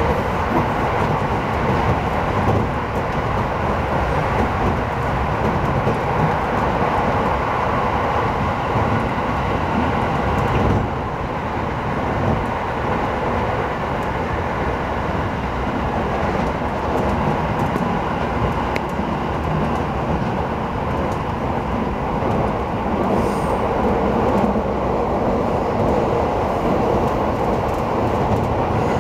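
Steady running noise heard inside a moving Aoimori Railway electric train: the rumble of wheels on rail and the car's motion. It becomes a little quieter about eleven seconds in.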